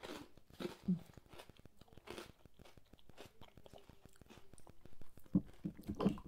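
Close-up chewing of crisp toasted bread: several sharp crunches in the first two seconds, then quieter mouth sounds. Near the end, a fork knocking and scraping in a roasted marrow bone.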